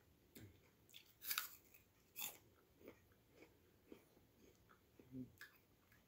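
Crisp apple being bitten and chewed close to the microphone: a loud crunch about a second in and another a second later, then softer, scattered chewing clicks.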